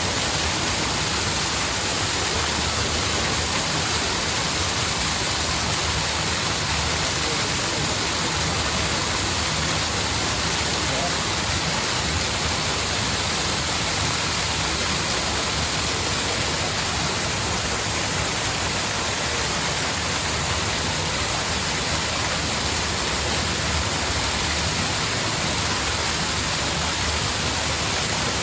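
Cascading water, a steady, unbroken rush with no changes.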